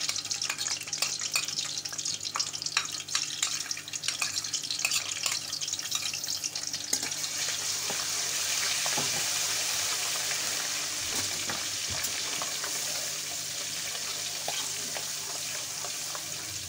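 Ginger, garlic and green chilli paste sizzling in hot ghee in a metal karahi, stirred with a metal ladle. It crackles and spatters sharply at first, then settles about halfway into a steadier frying hiss.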